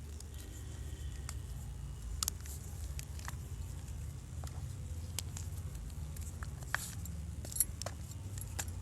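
Fresh block gym chalk being crunched and crushed: irregular crisp crackles and snaps, a few louder ones near two seconds in and about seven and a half seconds in, over a steady low hum.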